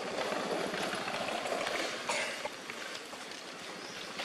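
Steady outdoor rushing background noise, with a brief higher sound about two seconds in.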